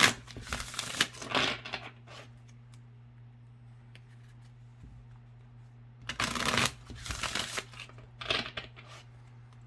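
A deck of glossy oracle cards being shuffled by hand, with two bouts of sliding and riffling, one in the first two seconds and another from about six to nine seconds in. A steady low hum runs underneath.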